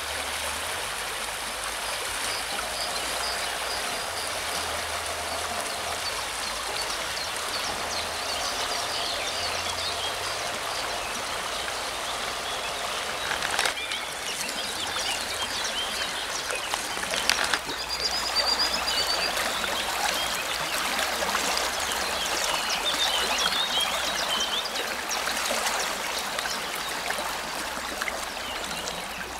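River water rushing steadily past the bank, an even hiss of flowing current that grows slightly louder a little past the middle.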